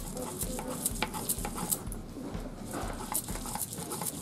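Stone roller (nora) rocked and ground across a stone grinding slab (shil), crushing a wet spice paste: gritty scraping with sharp clicks and dull knocks repeating about twice a second.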